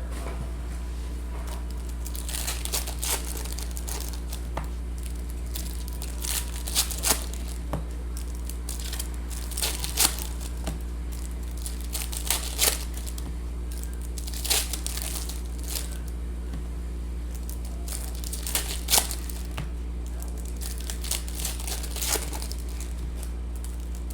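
Trading card pack wrappers crinkling and tearing as packs are ripped open, in irregular bursts over a steady low electrical hum.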